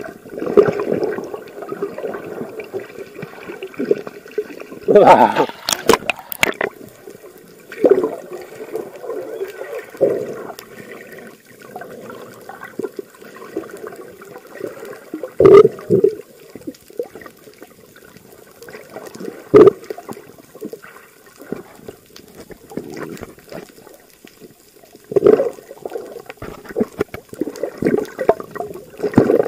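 Muffled water sloshing and bubbling heard by a submerged camera, with sharp knocks about five, fifteen, twenty and twenty-five seconds in.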